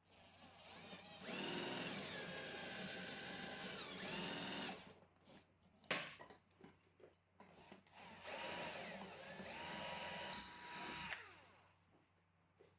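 12 V cordless drill-driver boring through a wooden slat into melamine chipboard, running steadily for about three and a half seconds. A sharp click follows, then the drill runs again for about three seconds.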